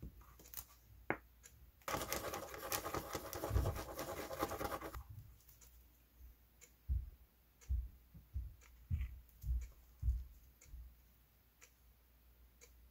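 A thin mixing tool scratching over a paper envelope for about three seconds as a dab of epoxy is stirred, followed by a few soft bumps and taps of handling the small wooden pad on the bench.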